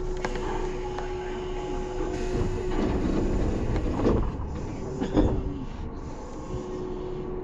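Running noise of a Tobu commuter electric train heard from inside a passenger car: steady track rumble with a held tone from the traction equipment, and two louder knocks about four and five seconds in.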